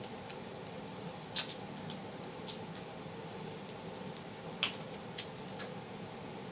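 Sharp crinkles and snips of a plastic candy wrapper being cut open with scissors, scattered through, with two louder ones about a second and a half in and again near five seconds.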